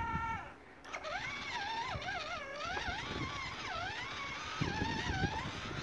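Electronic engine sound effect from a child's battery-powered toy dirt bike: a wavering tone that glides up and down, starting about a second in after a brief steady tone.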